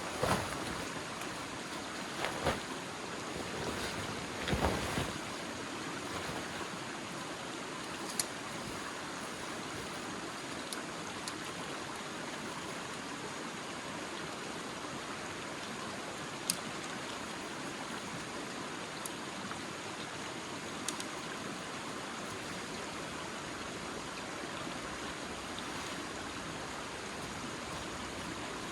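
Steady rushing noise of flowing water, with a few knocks in the first five seconds and scattered faint ticks after.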